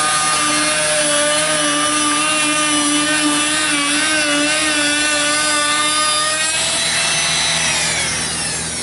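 Bosch Colt palm router with a bearing-guided profile bit cutting along the edge of a wooden board on its final, full-depth pass: a steady high whine over the noise of the cut. About six and a half seconds in, the cutting noise stops and the whine falls in pitch as the motor spins down.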